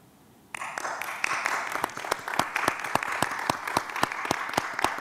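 A small group of people applauding; the clapping starts abruptly about half a second in and goes on steadily, individual hand claps standing out.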